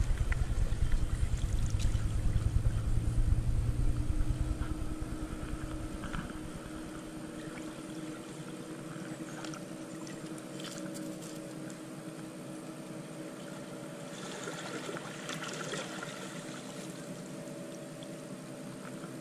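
Small sea waves washing and trickling over coral rubble and rocks, with a steady motor drone underneath. A low rumble on the microphone dies away about six seconds in, and the wash grows louder briefly about fifteen seconds in.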